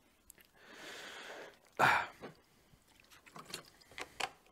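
A long breath, then a short sharp gasp, followed by a few light clicks and knocks as a glass is handled.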